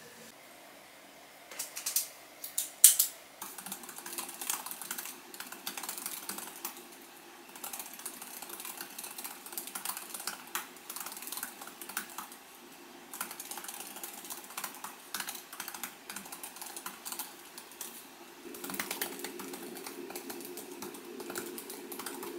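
Typing on a MacBook's built-in laptop keyboard: quick irregular key clicks in runs with brief pauses, after a few sharper, louder clacks in the first three seconds.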